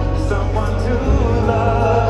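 Live band music played over a stadium PA, with a man singing and a heavy, steady bass line underneath.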